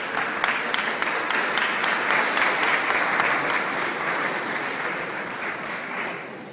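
Audience applauding, a dense patter of many hands that swells to its loudest about two to three seconds in and dies away near the end.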